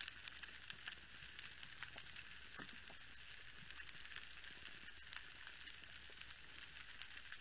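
Steady underwater crackle of countless tiny clicks, the sizzling background of a coral reef typical of snapping shrimp, with a few sharper clicks standing out.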